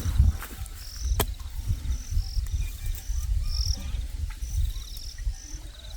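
Crickets chirping: short high chirps and quick trills repeating, over a low rumble, with one sharp click about a second in.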